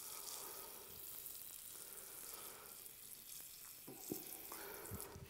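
Faint hiss of water sprayed from a nozzle over a bonsai's bare root ball, rinsing out the old soil and trickling into a bucket. A couple of soft knocks come near the end.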